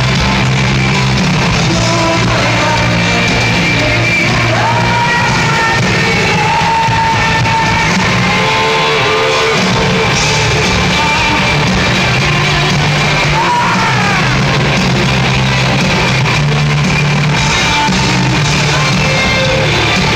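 A live rock band playing loud in a large hall: a singer's voice over electric guitar, bass and drums, with the bass notes changing every second or two.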